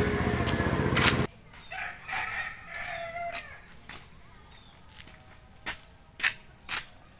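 A steady low hum cuts off suddenly about a second in. After that, a rooster crows in short gliding calls, and a few sharp clicks or knocks come near the end.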